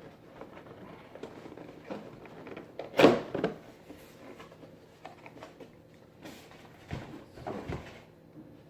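Small cardboard parts box and bagged kit parts being opened and handled: light rustling and clicking, with one sharp knock about three seconds in and another flurry near the end.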